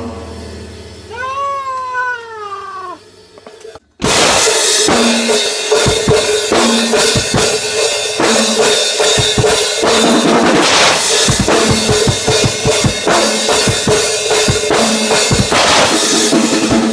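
A short high call that rises and falls in pitch about a second in, over a low fading hum. Then, about four seconds in, an acoustic drum kit starts suddenly and is played without a break: regular bass drum and snare hits under ringing cymbals.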